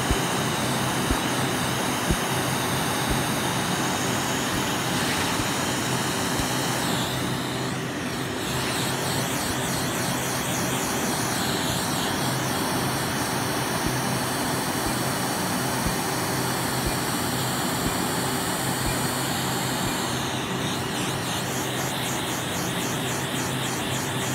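Laser treatment equipment running with a steady rushing hiss and hum, and faint clicks about once a second.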